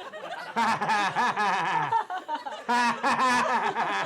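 A person laughing: two runs of rapid, chuckling ha-ha bursts, the second starting a little under a second after the first ends.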